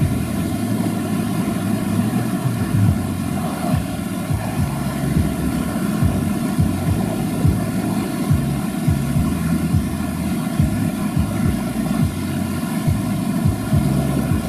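Off-road 4x4's engine running hard, its pitch stepping up and down, with frequent short low knocks.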